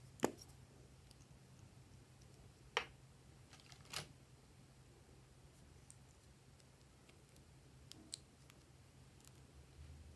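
Small sharp plastic clicks and taps from handling a glue stick and a plastic scoop: three distinct clicks in the first four seconds, then a few fainter ticks near the end.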